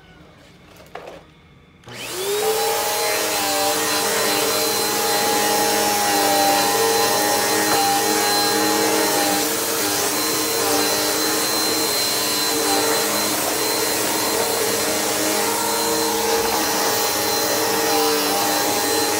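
A Bissell PowerForce Helix upright vacuum cleaner is switched on about two seconds in. Its motor spins up with a short rising whine, then runs steadily with a constant high-pitched whine over the rushing air.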